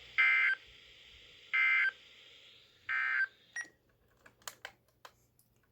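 A weather radio's speaker plays three short bursts of SAME digital data, the end-of-message code that closes a NOAA Weather Radio weekly test, each a fraction of a second long and about a second apart over steady radio hiss. After the third burst the hiss cuts out with a short beep, followed by a few faint clicks.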